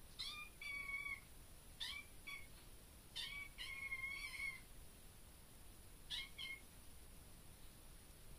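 Young black-and-white kitten meowing repeatedly: about six high-pitched meows, some short and one longer one about three seconds in, with a pause before two quick ones near the end.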